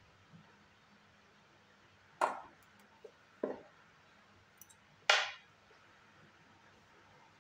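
A few separate sharp snaps and knocks from a hand-held battery spot welder on a pack of 21700 cells and its copper probes being handled. The loudest comes about five seconds in and rings briefly; a duller knock comes about three and a half seconds in.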